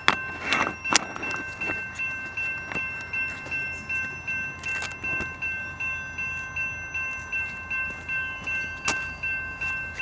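Railroad grade-crossing warning bell ringing in a steady rhythm of about two strokes a second: the crossing is activated for an approaching train. A few sharp clicks sound in the first second and once near the end.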